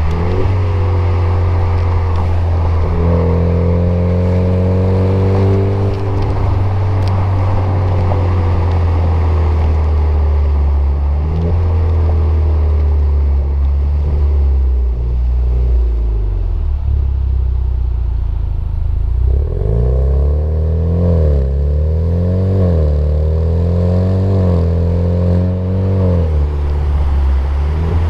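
Alfa Romeo Stelvio running through a Supersprint full exhaust with race muffler while driving: a steady low exhaust drone whose pitch rises as the car accelerates and falls as it eases off. In the last third, several quick rises and drops in engine pitch follow one after another.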